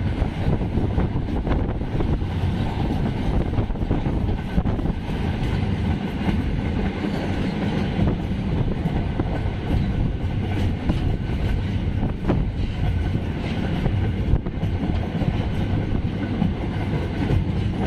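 Moving train heard from on board: a steady rumble of wheels on the rails with a few faint clacks.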